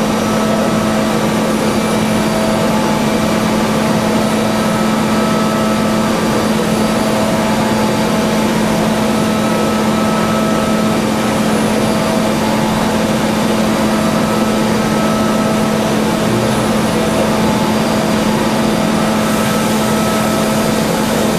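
CNC machining centre milling solid metal: a steady spindle and cutter hum with a few higher whining tones over a hiss of coolant and chips. Near the end the hiss turns brighter as coolant sprays over the spindle.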